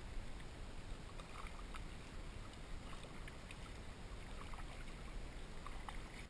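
Water swishing and lapping around a kayak as it is paddled along, with a few faint light ticks.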